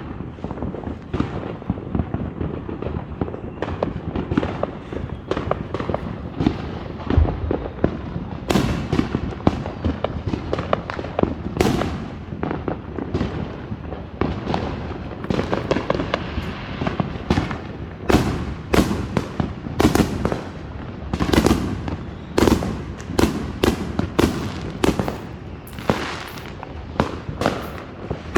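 Fireworks going off in quick, irregular succession, several bangs a second with crackling between them and a rumbling echo after each; the bangs grow denser and louder about a third of the way in.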